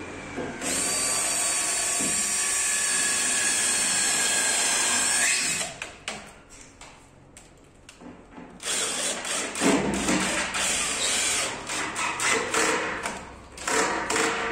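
Cordless drill working into the bottom corner of a wood-laminate cabinet panel. It makes one steady run of about five seconds, its pitch rising just before it stops, then after a pause of light clicks comes a second, choppier run in short stuttering bursts.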